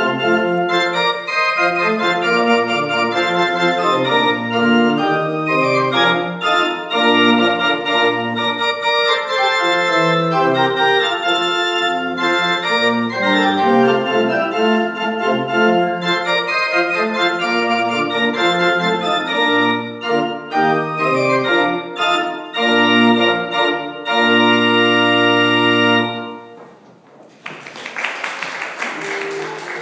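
Historic church pipe organ built by Johannes Hahn, playing a quick-moving piece in many short, sustained notes. The piece ends on a held chord about 26 seconds in. A brief noisy hiss follows, and a new held note begins at the very end.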